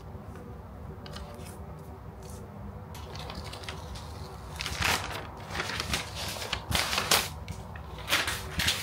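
Rustling and crinkling of a new MacBook Pro's protective wrap and packaging as the laptop is unwrapped and lifted from its box: quiet at first, then a run of sharp crinkles from about halfway on.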